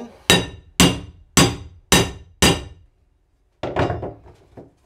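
Hammer tapping a steel socket extension down to seat a drain extractor tool in a rusted bathtub drain: five sharp metallic strikes about half a second apart, each ringing briefly. A few softer knocks follow near the end.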